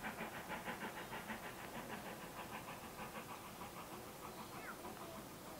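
Steam tank locomotive working out of sight, its exhaust chuffing in a fast, even rhythm that slowly fades.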